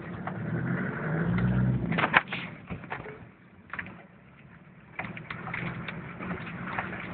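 Off-road vehicle's engine running: the revs rise about a second in, fall away, and pick up again around five seconds in, with a few scattered knocks.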